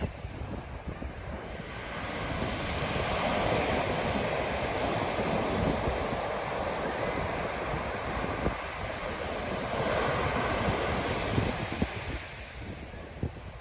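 Ocean surf breaking and washing up the beach, swelling for several seconds and easing near the end, with wind buffeting the microphone.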